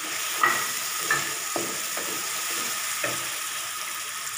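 Onion-tomato masala frying in oil in a metal kadai with a steady sizzle, while a wooden spatula stirs and scrapes it, knocking against the pan about five times in the first three seconds.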